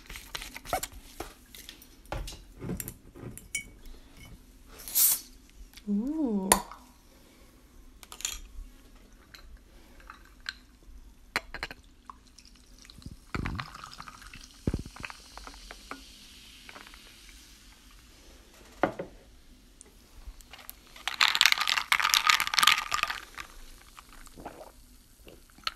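Sparkling guava juice poured from a glass bottle into a glass of iced green tea, with ice and a metal straw clinking and tapping against the glass. Near the end comes a louder noisy stretch of about two seconds as the drink is stirred and sipped through the metal straw.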